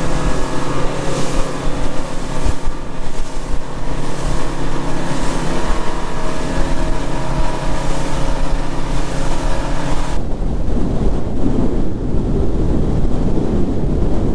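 Motorboat's outboard engines running steadily at speed, with wind on the microphone and the rush of water. About ten seconds in, the engine tone drops out, leaving mostly a low wind rumble.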